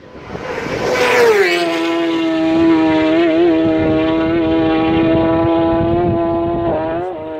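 A racing motorcycle passes at speed about a second in. Its engine note drops sharply in pitch as it goes by, then holds a steady, loud, high-revving note as it carries on up the road.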